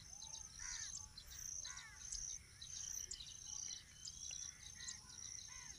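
Faint outdoor ambience: crickets chirping in a steady, rapid high pulse, with a bird giving repeated short arched chirps every half second or so.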